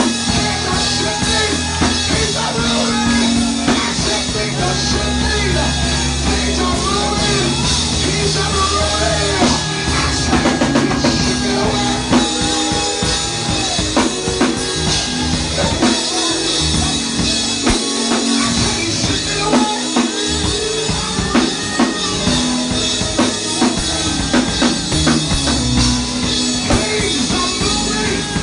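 Church band music with a drum kit, sustained bass notes and wavering melody lines, played at a steady loud level.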